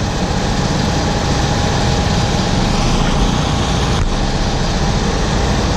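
Heavy farm machinery engine running steadily, a constant low rumble with a thin steady whine above it.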